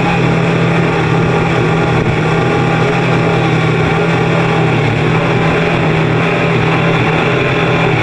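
Motorboat engine running steadily at speed, with the rush of wake water and wind, heard from aboard the towing boat.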